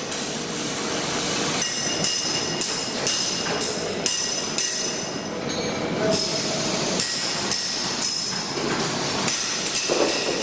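Metalworking shop din: a steady noisy hiss of running machinery with frequent short metal knocks and clanks scattered through it.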